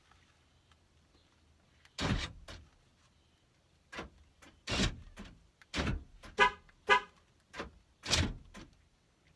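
2003 Ford Windstar's sliding door and power lock being tested: a run of heavy thumps and clunks as the door shuts and the lock actuator cycles, with two short horn chirps half a second apart a little past the middle. The replaced latch mechanism locks without grinding.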